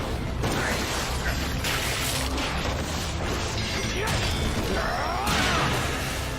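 Dramatic music with crashing impacts. About five seconds in comes a screeching monster roar whose pitch sweeps up and down: a King Ghidorah roar sound effect.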